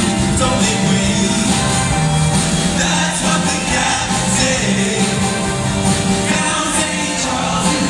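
Show choir singing together over loud band accompaniment, a continuous stretch of upbeat music.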